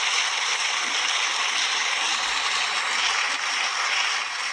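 Studio audience applauding steadily, heard through a television's speaker.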